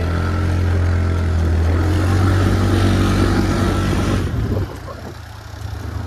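Motor-vehicle engine running loud and steady, then dropping away sharply about four and a half seconds in.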